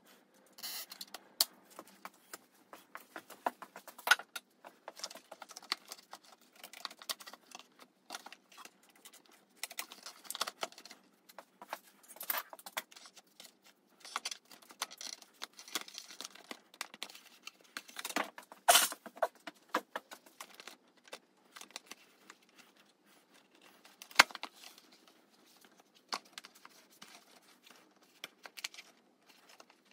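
Handling noise from a motorcycle's plastic airbox being worked loose and lifted out: irregular clicks, knocks and rustling, with a few sharper knocks, the loudest about 24 seconds in.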